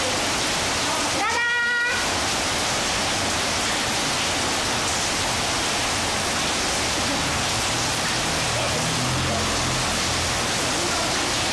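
Steady rain falling and splashing into puddles on a tiled floor. About a second in comes one short, high-pitched squeal from a toddler.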